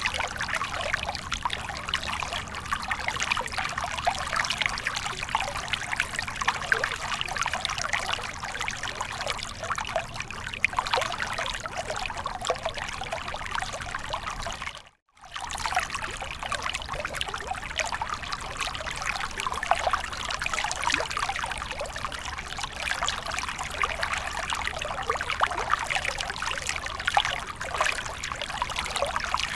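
Stream water flowing over rocks in a moderate current, a steady trickling rush that cuts out for a moment about halfway through.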